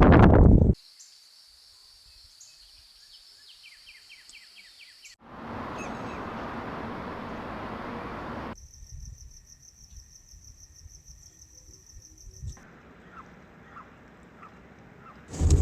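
Outdoor ambience cut together in short segments. It opens with faint bird chirps over a high insect drone, then a few seconds of louder rushing noise, then a steady high-pitched insect trill, and faint chirps again near the end.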